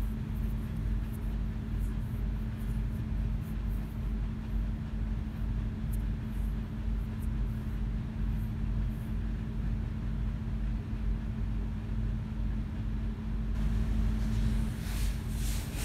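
Steady machine hum with a constant low drone. A few faint taps and rustles of paper and a metal ruler being handled come near the end.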